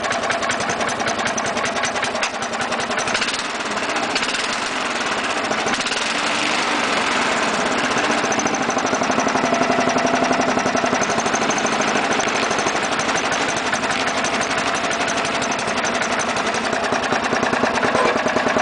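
Simplicity Regent lawn tractor's engine running steadily at about 2,000 rpm, a little louder from about eight seconds in.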